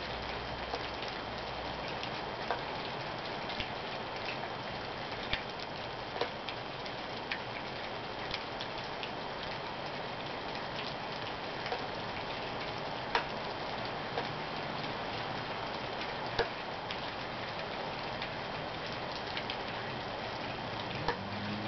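Steady rain falling through a thunderstorm, with irregular louder drips ticking onto a hard surface every second or two.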